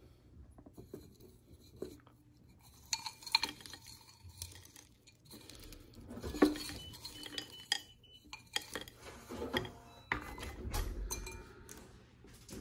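Orchid stones and bark chips clinking and rattling against terracotta pots as the potting mix is handled: scattered small clicks and knocks, in a few bunches.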